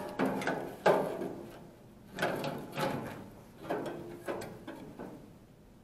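Metal blower assembly knocking and scraping against the heater's sheet-metal cabinet as it is worked into its mounting opening: a series of about six clunks and scrapes that die away near the end.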